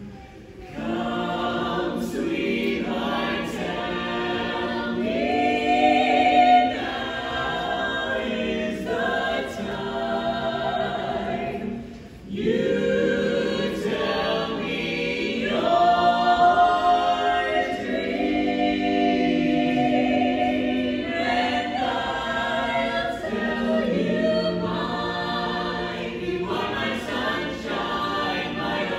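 Mixed a cappella vocal group of men and women singing unaccompanied in close harmony. The singing starts about a second in, with a brief break about twelve seconds in.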